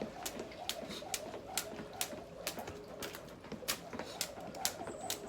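Jump rope slapping the ground in a steady rhythm, a little over two sharp clicks a second, as the skipper keeps a basic bounce.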